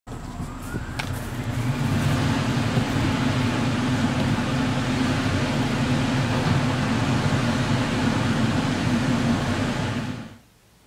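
Loud, steady mechanical running noise with a low hum, starting abruptly and cutting off about a second before the end.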